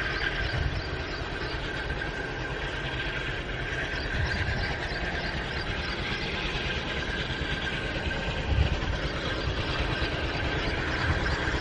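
Diesel locomotive hauling a passenger train, its engine running steadily as it approaches, with a steady high whine over the rumble; it grows a little louder near the end.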